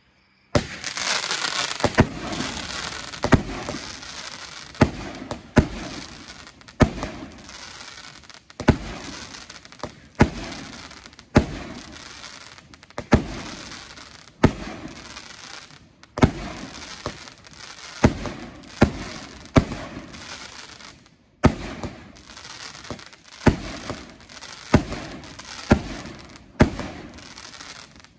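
A 25-shot consumer firework cake firing its shots one after another. It starts with a hiss about half a second in, then gives a sharp report every one to one and a half seconds, each trailing off before the next.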